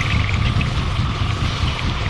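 Noise music: a loud, steady wash of noise over a flickering low rumble, with a hiss band higher up.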